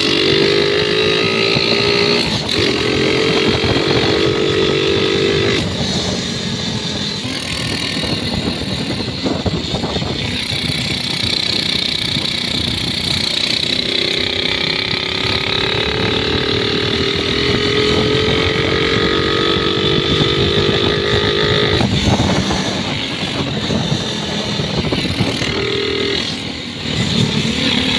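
Scooter engine fitted with a CPO PE24 carburettor on an otherwise stock engine, pulling under throttle on the road. Its note climbs as it accelerates and drops back when the throttle eases, a few times, over heavy wind and road noise on the microphone. The rider judges the carburettor to be running normally.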